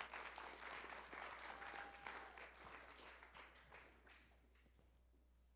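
Faint applause from a church congregation, dying away about four seconds in.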